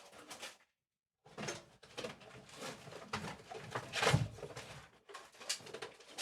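Irregular clatter, knocks and rustling of objects being handled, with a louder knock about four seconds in.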